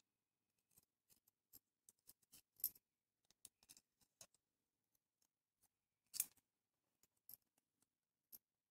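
Faint, scattered small clicks and taps as the metal contact flaps and parts of a radio IF transformer are worked loose by hand and set down on a wooden bench, with two sharper clicks near the middle and about two-thirds of the way through.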